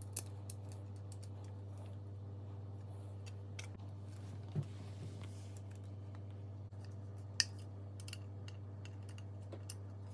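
Scattered light clicks and taps of small screws and metal parts being handled and started by hand while fastening a replacement oven convection fan motor to its mount, with one sharper click about seven seconds in, over a steady low hum.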